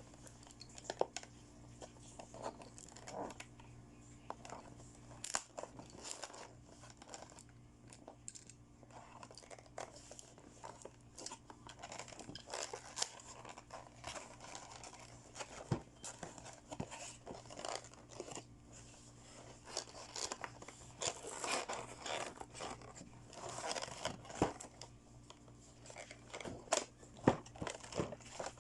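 Toy-set packaging being opened by hand: plastic and paper crinkling and tearing, with scattered small clicks and taps, busiest a little past the middle.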